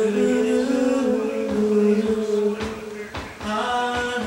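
A singer's voice holding long wordless notes that glide slightly in pitch, with a short break about three seconds in before another held note.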